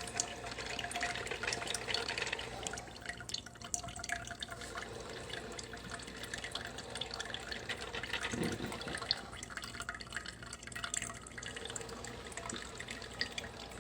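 PowerXL Grind & Go single-serve coffee maker mid-brew: freshly brewed coffee trickling and dripping from the filter basket into the cup.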